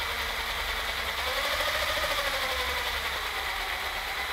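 Cordless drill running steadily, spinning a spool on a socket adapter as braided fishing line winds onto it; a faint whine in the motor rises and falls slightly around the middle.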